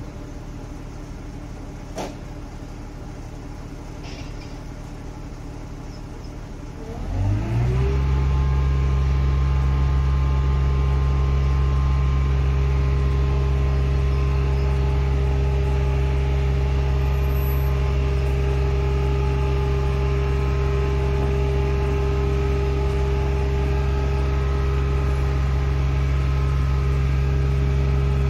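A bucket truck's diesel engine idling low, then speeding up about seven seconds in and holding at a raised, steady speed to drive the hydraulics while the aerial boom and basket are lowered.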